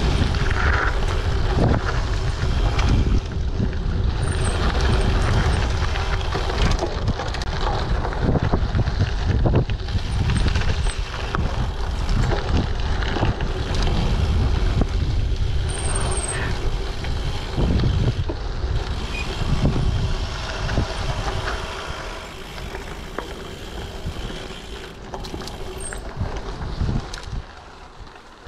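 Wind buffeting a GoPro action camera's microphone while a Giant TCX gravel bike on 38 mm WTB Riddler tyres rolls over a rough dirt trail, with a constant tyre rumble and irregular rattles and knocks from the bike over bumps. It gets quieter over the last few seconds.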